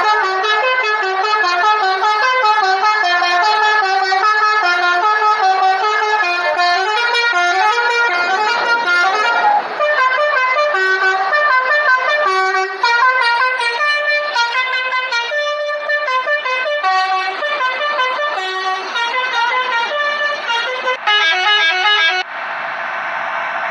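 Indonesian telolet bus horn, a multi-tone musical horn, playing a long quick melody of short stepping notes without a break. Near the end it switches to a faster repeated figure, then stops, leaving a steady rushing noise.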